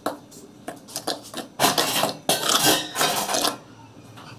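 Steel spoon stirring and scraping through dry multigrain flour in a stainless steel bowl: irregular rough scraping strokes, busiest and loudest in the middle, dying down near the end.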